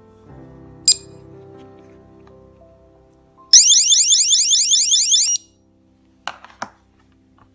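Anti-theft display alarm for retail products going off: a loud, rapid run of rising electronic whoops, about six a second, lasting about two seconds and then cutting off abruptly. A short high beep sounds about a second in, over fading background music, and two clicks follow the alarm.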